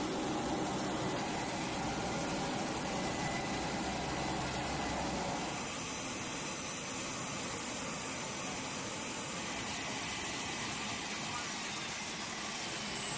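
Steady rush of aircraft turbine noise on a flight line, with a thin high whine that falls in pitch near the end. It gets a little quieter in the low end about halfway through.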